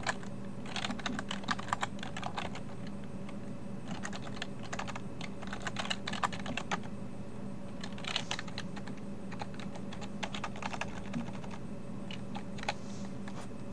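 Computer keyboard typing: quick runs of keystrokes in several bursts with short pauses between them, over a steady faint hum.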